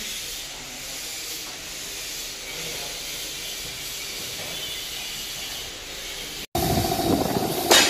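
A steady, even hiss of background noise. About six and a half seconds in it cuts out for an instant and gives way to louder sound with a steady hum, and a short clatter comes just before the end.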